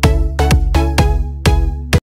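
Electronic dance-style background music: a punchy kick drum that drops in pitch on each beat over sustained synth chords, stopping abruptly at the very end.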